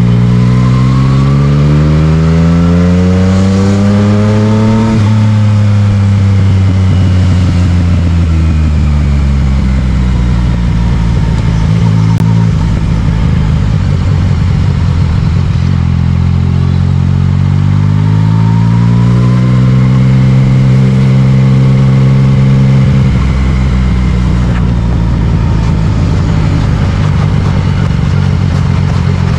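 Yamaha MT-09's inline three-cylinder engine through an Akrapovic exhaust, under way in traffic. It climbs through the revs for about five seconds and falls back, runs steady, climbs again about halfway through, then drops off toward the end, over a steady rush of wind and road noise.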